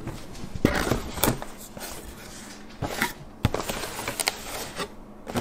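A cardboard product box being handled and opened: cardboard rustling and scraping, with several sharp knocks and taps as the box and its flaps are moved about.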